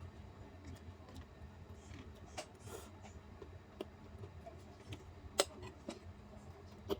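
Mukbang eating sounds: someone eating stir-fried bitter gourd, with scattered soft clicks and taps from eating and utensils. The sharpest taps come about five and a half seconds in and again near the end.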